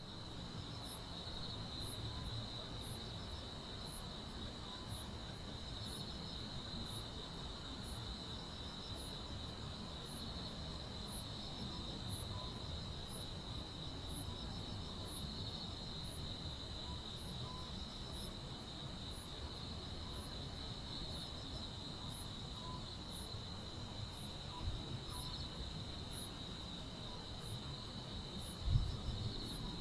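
Crickets and other grass insects singing: a steady high trill with a higher, sharper chirp repeating about twice a second. A low thump sounds near the end.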